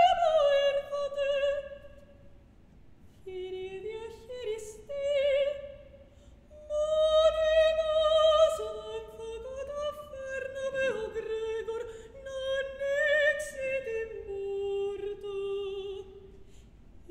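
A female opera singer sings sustained notes with wide vibrato, in phrases with short breaks between them, in a live chamber-opera performance.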